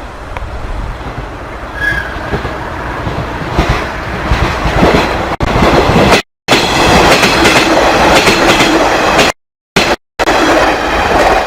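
A train passing over a level crossing: its rumble builds over the first few seconds and then stays loud, with wheel clatter on the rails. The sound drops out completely twice, briefly.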